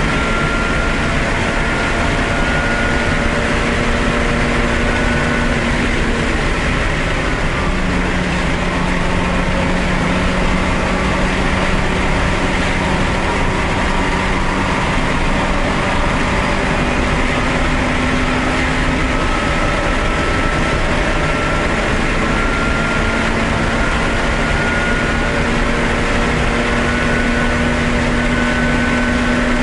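A race car's engine at speed, heard from inside the cabin over loud road and wind noise: a loud, steady drone whose pitch steps and glides a few times as the car slows for a corner and accelerates again.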